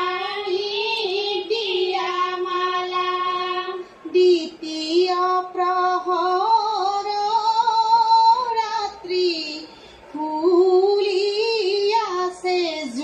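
Women singing an Assamese wedding song (biya naam) in one held, winding melodic line, with short breath pauses about four and ten seconds in, played through a television's speaker.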